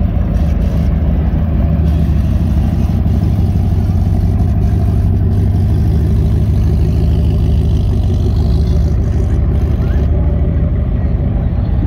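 Supercharged V8 of a 1960s American convertible running steadily at low revs as the car rolls slowly past: a deep, even engine note.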